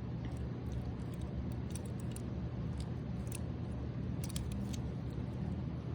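Faint clicks and light rattles of hands handling a die-cast toy car and its plastic and cardboard packaging, a few clicks in quick succession about four seconds in, over a steady low hum.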